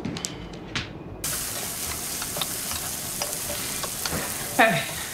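Eggs frying in a pan on a stove: a steady sizzle that starts suddenly about a second in, with light clicks of stirring. Near the end comes one short, loud screech that falls in pitch.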